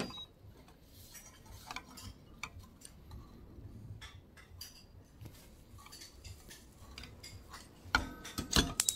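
Chopsticks working an oiled paper towel around a nonstick frying pan give faint scrapes and light taps. About eight seconds in, a few louder sharp metallic clinks ring out as the pan is lifted off the gas hob's grate, followed by a quick run of clicks.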